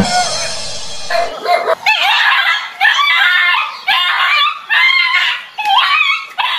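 A dog barking over and over in high calls that waver in pitch, about one a second. A loud, rough burst of noise fills the first second.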